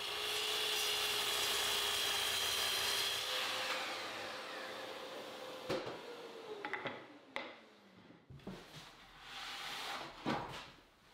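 Miter saw crosscutting a solid cherry table leg to length: a steady motor whine with the blade cutting through the wood for about three and a half seconds. The whine climbs slightly once the blade is clear of the cut, then falls as the blade winds down around seven seconds in. A few sharp clicks and knocks of wood being handled follow.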